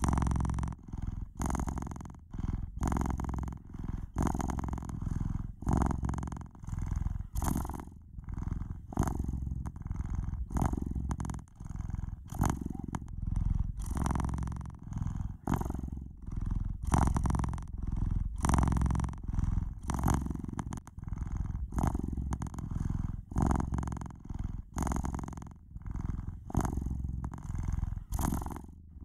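Domestic cat purring close to the microphone: a noisy, continuous purr that swells and dips in even pulses with each breath in and out.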